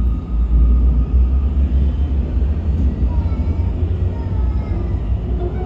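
Munich U-Bahn Typ C2 train running at speed between stations: a steady low rumble of wheels on rails, with a faint whine that shifts in pitch partway through.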